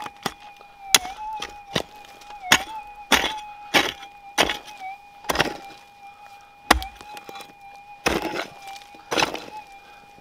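Metal detector's steady threshold hum, with about ten sharp strikes of a digging tool into gravelly ground, roughly one a second, and scraping between them as a target is dug out.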